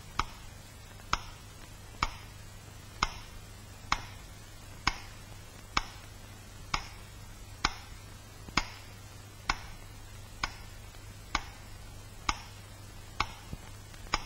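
A metronome beating slowly and steadily, about one sharp tick a second: the radio metronome of the Leningrad blockade, which Leningrad radio broadcast between programmes as the sign that the besieged city was still alive.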